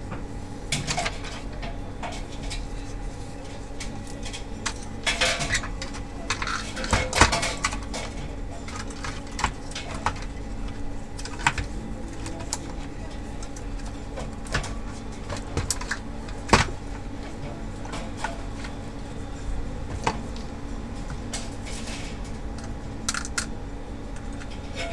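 Scattered clicks, taps and knocks of plastic and metal parts as an opened LCD projector is handled and reassembled, busiest a few seconds in, with two sharper knocks, over a steady low hum.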